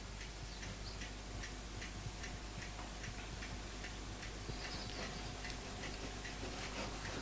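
A clock ticking steadily, a little more than two ticks a second.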